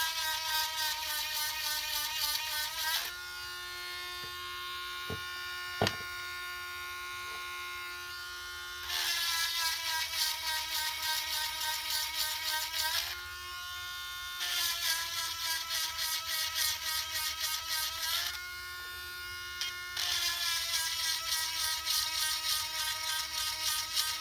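Cheap cordless rotary multitool sharpening chainsaw chain cutters: a steady high-pitched whine while it spins free, broken four times by gritty grinding passes of three to four seconds each as the stone is held against a tooth. Two light knocks come in the first free-running gap.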